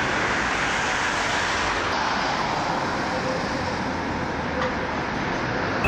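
Steady road traffic noise of cars driving along a city street.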